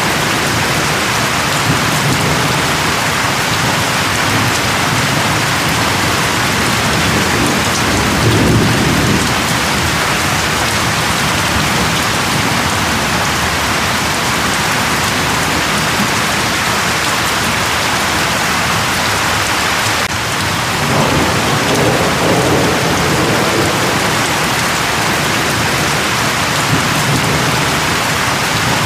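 Steady heavy rain falling, with low rumbles of thunder swelling about a third of the way in and again about two-thirds through.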